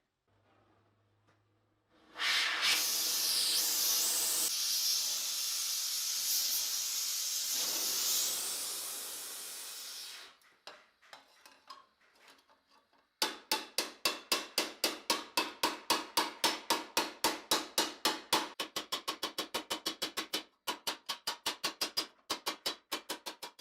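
A steady loud hiss for about eight seconds, then hammer blows on sheet steel armour plate in a fast, even rhythm of about five strikes a second, quickening near the end.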